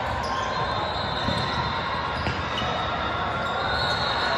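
Basketball being bounced on a gym court during a game, over steady gym background noise.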